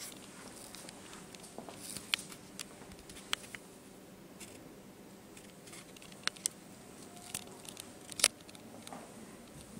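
Quiet room tone with light rustling and a handful of short, sharp clicks, the loudest a little after eight seconds in: handling noise from a handheld camera being carried slowly through a room.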